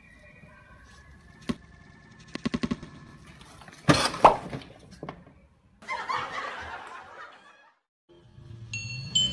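A motor scooter crashing over: two loud knocks about four seconds in, after a quick run of clicks. A short burst of noise follows, and music starts near the end.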